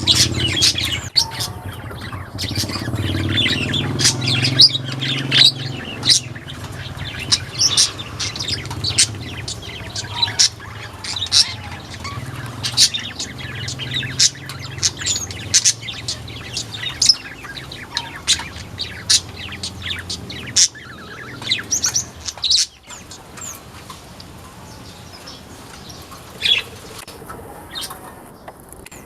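White-eyes (pleci) chirping busily in quick, high, twittering notes, thinning out about 22 seconds in. A low hum runs underneath and fades at about the same point.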